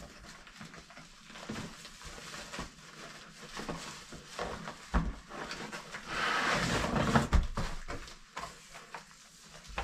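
Packaging being handled while items are pulled out of a cardboard box: scattered taps and knocks, two thumps, and a stretch of plastic crinkling about six seconds in.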